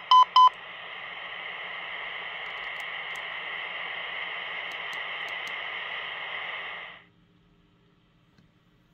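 Two short 1 kHz CW tone beeps, the keyed Morse sidetone of a Quansheng handheld transceiver, then steady radio static hiss from the radio's speaker that cuts off suddenly after about six and a half seconds.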